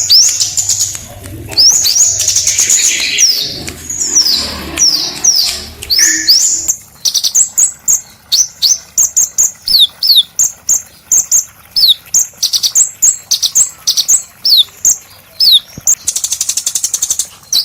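A small songbird singing a rough, rolling song. For the first several seconds it gives sweeping whistled notes. After that come short quick notes with a falling whistle, about two a second, and a dense buzzy rattle near the end.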